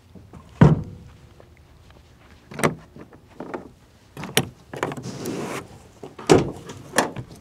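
Latches and doors on a Ram 2500 pickup with an aluminium camper cap: a loud thump early on, then latch clicks as the cap's rear glass hatch is unlatched and lifted, a short hiss, and a loud thump and knock as the tailgate latch releases.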